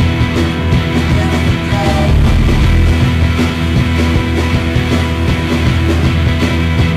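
Loud rock music with a heavy bass line and a steady beat.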